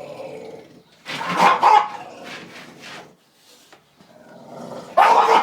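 Bulldog barking at a lawnmower: two barks close together about a second in, and another near the end.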